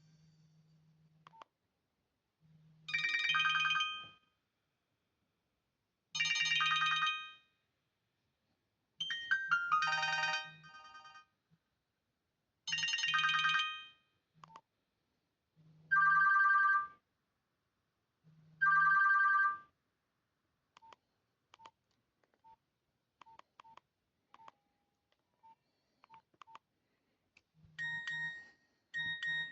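Nokia 106 mobile phone playing its built-in tones through its speaker: six short electronic chimes, each about a second long, spaced roughly three seconds apart. They are followed by a run of faint short beeps and, near the end, quick repeated two-note beeps.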